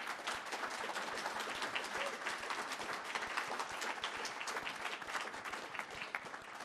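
Audience applauding, many hands clapping in a steady patter that begins to die down near the end.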